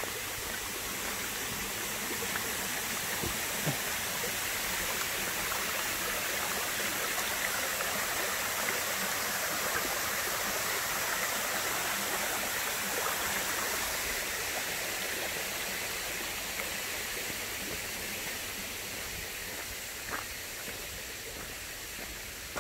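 Shallow creek water rushing over rock ledges: a steady rush of running water that eases off somewhat near the end.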